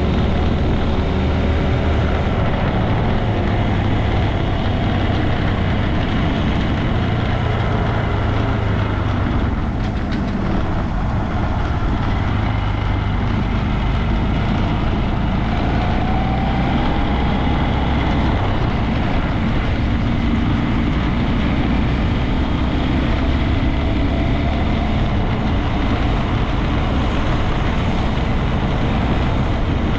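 Honda Grom 125's single-cylinder four-stroke engine running steadily on the move, its pitch drifting slowly with engine speed, over wind and road noise.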